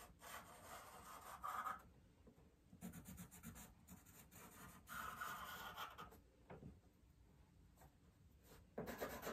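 Charcoal pencil scratching faintly on drawing paper in short strokes as line details are drawn, in several short spells with quiet gaps between.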